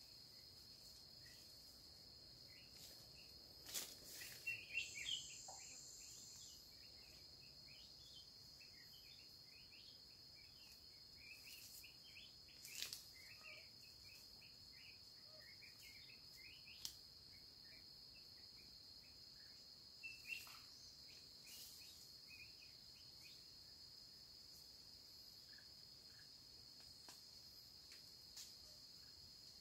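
Faint steady high-pitched drone of forest insects, with scattered faint chirps over it. A few brief crackles of dry bamboo leaf litter stir underfoot, the loudest cluster about four seconds in.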